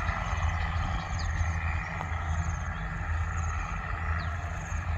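Diesel engine of a Thai RHN diesel railcar running steadily as the train pulls away, giving a deep, solid low drone. Faint high chirps sound over it at intervals.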